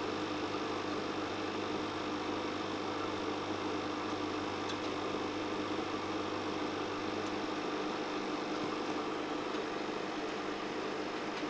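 Aquarium pump humming steadily, an even mechanical drone with a faint hiss over it.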